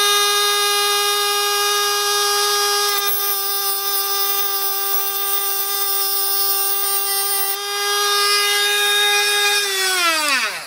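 Dremel rotary tool with a cut-off wheel running at a steady high whine, with a hissing grind from about three to seven seconds in as the wheel cuts through the remote's inner cable wire. Near the end the motor is switched off and spins down, its pitch falling.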